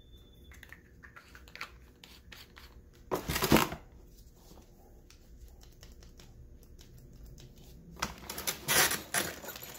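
Packaging handling noise: plastic wrapping and cardboard rustling and crinkling as a plasma cutter torch and its coiled hose are handled in their box, with small clicks throughout. A louder burst of rustling comes about three seconds in, and another near the end as the hose is laid back into the box.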